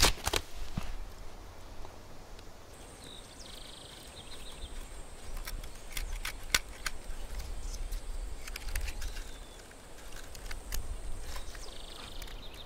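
A sheath knife cutting and prying at a wooden stub on a pine trunk: scattered sharp clicks and small cracks of blade on wood, with a sharp knock at the very start. A low wind rumble sits underneath, and a thin steady high tone runs through most of it.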